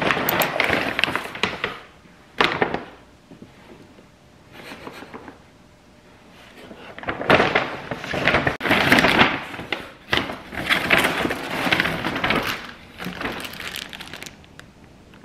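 Handling noises in irregular bursts: rustling and clattering of objects being moved about, with a sharp knock about two and a half seconds in.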